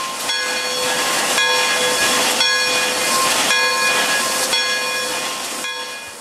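Pere Marquette 1225, a 2-8-4 Berkshire steam locomotive, passing close by in a cloud of hissing steam, its exhaust surging about once a second, while its steam whistle sounds steadily over the hiss.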